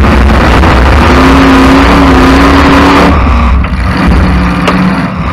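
Demolition derby car's engine running hard, heard very loud from inside the car. The engine note holds high, drops about three seconds in, then settles lower near the end.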